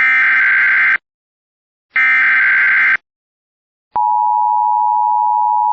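Emergency Alert System activation: the last two of the three SAME digital header bursts, each a one-second burst of buzzy data with a second of silence between, then the EAS two-tone attention signal starting about four seconds in and holding steady.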